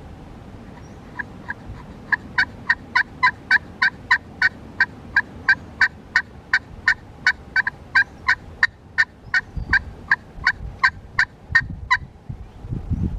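Wild turkey calling: a long, even run of short yelps, about three a second, starting about a second in and stopping near the end. Wind rumbles on the microphone near the end.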